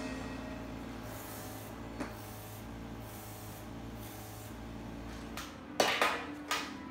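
A series of short hissing puffs from a hand-pumped air marker sprayer blowing marker ink onto the card. About six seconds in come a few sharp knocks of things being set down on a glass tabletop.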